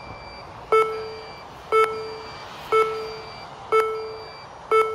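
RotorHazard race timer counting down the final seconds of a timed race: five short beeps, one a second, each fading out quickly.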